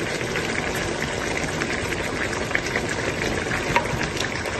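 A pot of beef curry bubbling on the stove after ghee has been added: a steady hiss with many small pops, and one sharper click near the end.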